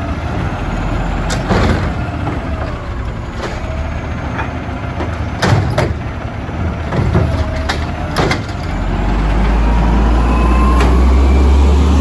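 Natural-gas automated side-loader garbage truck working a recycling cart: engine running with a faint hydraulic whine as the arm lifts and dumps it. There are sharp knocks from the cart and arm at four points. Near the end the engine grows louder as the truck pulls away.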